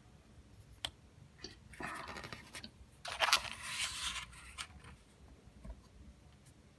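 Handling sounds from a plastic scale-model truck frame being picked up and moved over a cutting mat: a few small clicks and two short stretches of scraping and rustling, the longer one about three seconds in.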